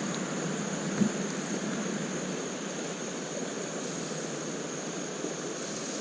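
Flowing creek water rushing steadily, with one short knock about a second in.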